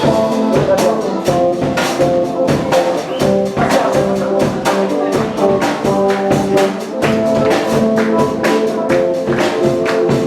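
Upbeat band music: an instrumental dance break with a brass-like melody over a steady percussion beat.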